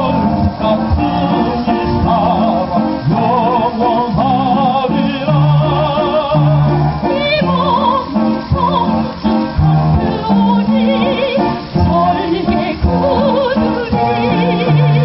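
Tenor and soprano singing a classical-style duet with strong vibrato over an instrumental accompaniment, amplified through a PA system.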